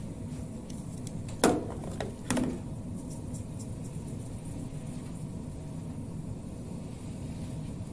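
Steady low hum of a kitchen range hood fan, broken by two sharp knocks about a second and a half and two and a half seconds in, each ringing briefly.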